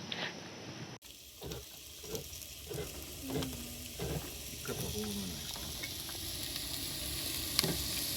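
Ground beef and chopped vegetables frying in a pan, starting about a second in: a steady sizzle that grows slowly louder, with short scrapes and clicks of a utensil stirring the food.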